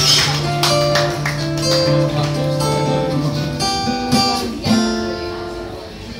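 Live acoustic guitar playing, amplified, with strummed chords under a line of held melody notes.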